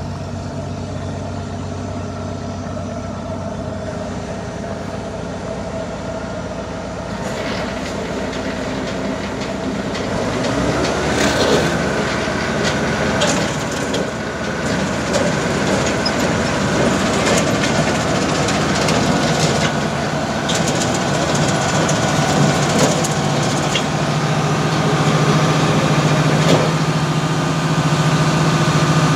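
A tractor engine running steadily beside a bale processor, joined about ten seconds in by metallic rattling and scattered knocks, the whole sound getting louder toward the end.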